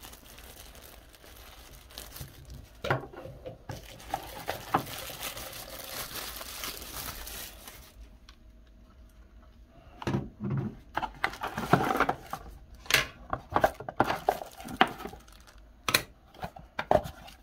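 Thin packing wrap crinkling and rustling as it is pulled off the parts. From about ten seconds in comes a run of light clicks and knocks as hard plastic mount pieces are handled.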